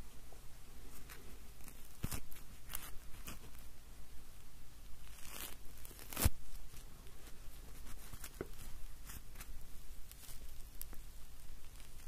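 Marshmallow being torn apart by hand close to the microphone: sparse, sticky crackles and small clicks, with two sharper snaps about two seconds and six seconds in.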